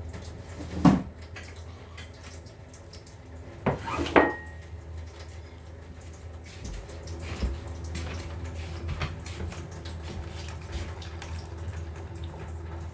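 Kitchen pots and utensils clattering: a loud clank about a second in and two more close together near four seconds, the last ringing briefly, then softer handling knocks.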